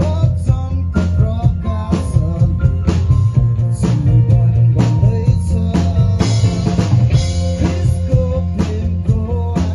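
Live rock band playing with drum kit, bass and electric guitar, drum hits roughly once a second, heard raw from a sound check.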